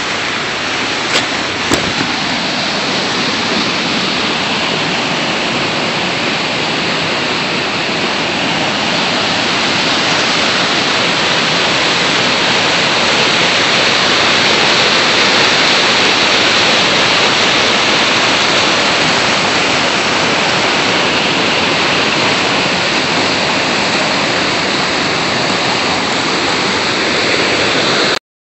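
Waterfall: a loud, steady rush of white water pouring down a rock face, swelling a little midway. Two brief knocks sound about a second in, and the rushing cuts off suddenly near the end.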